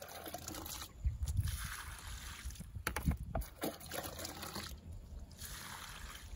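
Water poured by hand from a plastic dipper onto the soil and mulch netting at the base of a young durian tree, splashing and trickling in two spells, one about a second in and another near the end.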